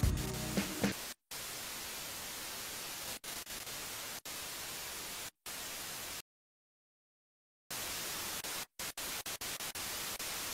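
Music stops about a second in and gives way to a hiss of static that starts and cuts out abruptly. The static drops away completely for over a second in the middle, then returns in a rapid stutter of short on-off bursts near the end.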